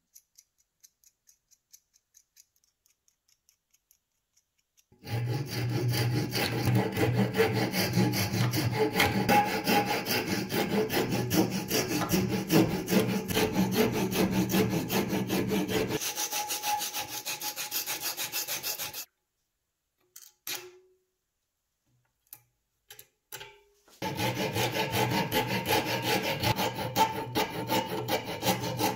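Hand file rasping back and forth across a beech-wood screwdriver handle clamped in a vise, in rapid, steady strokes. It starts about five seconds in after a few faint clicks, stops for several seconds with a few scattered clicks, then starts again near the end.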